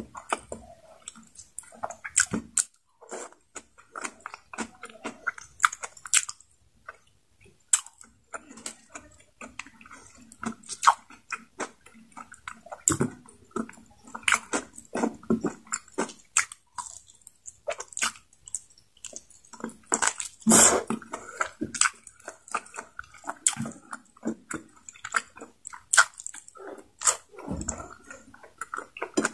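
A person chewing and biting adobo chicken necks, with wet mouth smacks and irregular clicks.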